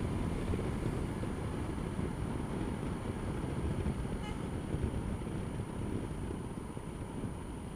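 Honda Dio scooter riding through city traffic: a steady low rumble of its small engine and road and wind noise on the camera microphone. A brief faint horn sounds about four seconds in.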